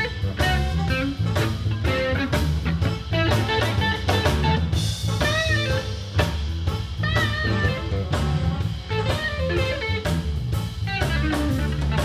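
A blues band playing live: a walking electric bass line and a drum kit under an electric guitar lead with bent notes.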